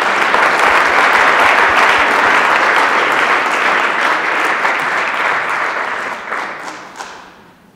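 An audience applauding loudly, holding steady and then dying away over the last couple of seconds.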